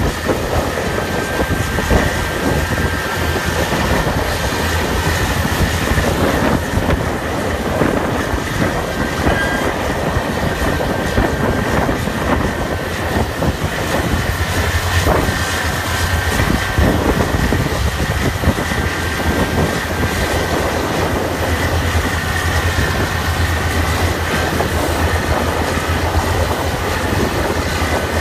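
Diesel engines of a pair of coupled Cat 657G push-pull scrapers running hard under load while self-loading. Constant heavy rumble with rattling and clanking, and a steady high whine over it.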